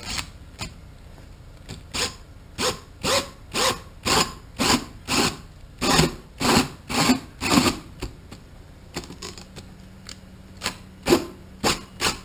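Cordless drill turning a hole saw in reverse through boat-deck carpet, run in short bursts of about two a second with a pause in the middle.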